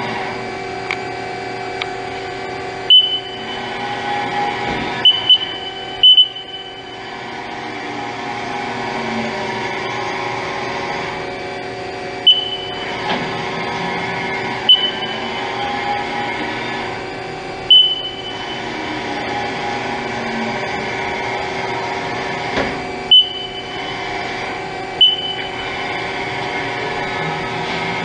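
A 2008 Haas SL-40T CNC lathe running under power: a steady mechanical hum with a few held tones. Every few seconds it is broken by short, sharp high-pitched chirps, some in quick pairs, which are the loudest sounds.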